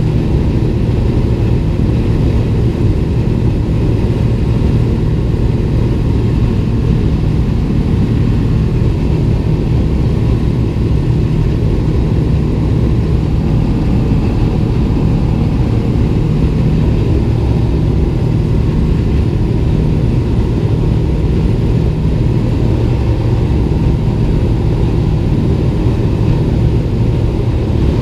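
Light aircraft's piston engine running steadily: a low, even drone with no rise or fall in pitch.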